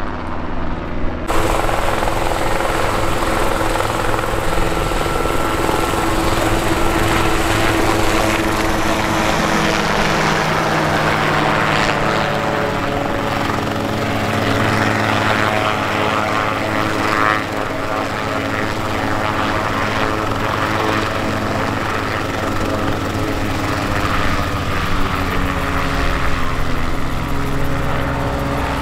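Light helicopters' engines and rotors running steadily, loud and close, with a whirring drone. The sound changes abruptly about a second in.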